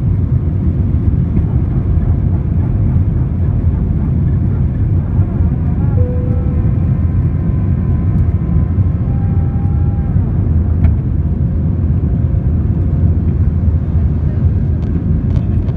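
Steady low rumble inside the cabin of an Airbus A320: engine and airflow noise heard from a passenger seat.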